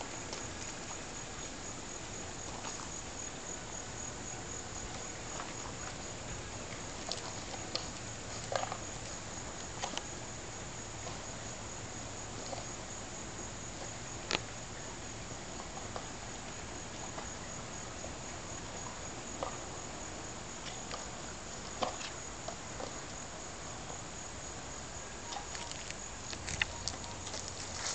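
Steady, high-pitched trilling of insects, one thin unbroken tone, with a scattering of faint short clicks and taps.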